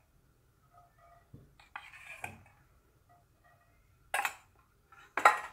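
Steel kitchen utensils clinking and clattering in three short bursts, about two, four and five seconds in, with quiet between.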